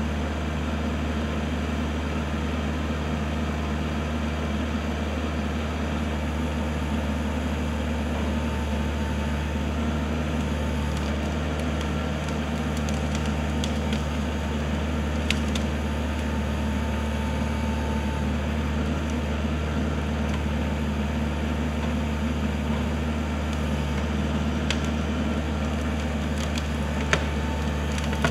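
Kubota L4400 tractor's diesel engine running steadily, with a few short sharp clicks over it, the loudest a little before the end.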